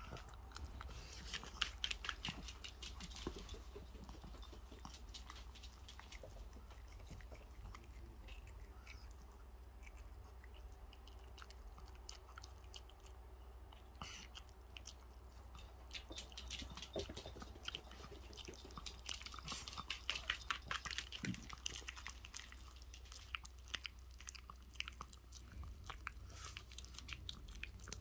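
A small puppy chewing and biting on raw chicken: faint, crisp crunching bites in bursts. They are busiest in the first few seconds and again through much of the second half.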